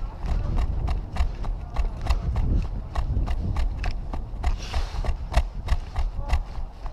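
Footsteps at a steady walking pace, with sharp clicks about three or four times a second over a continuous low rumble.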